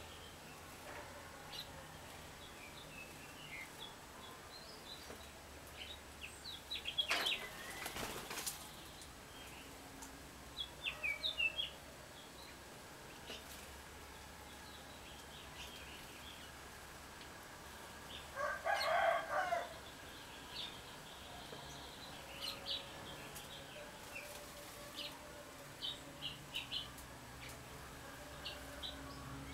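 Small wild birds chirping with short, high calls throughout, a flutter of wings about seven seconds in, and a louder burst of sound lasting about two seconds around two-thirds of the way through.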